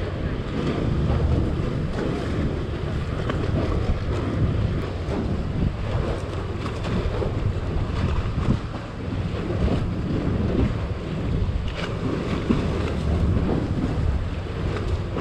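Wind buffeting the microphone in gusts, over choppy sea water moving against the jetty below.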